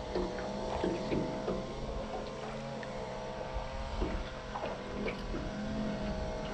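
A steady motor hum from a boat, with small irregular knocks and water lapping against a small fishing boat's hull.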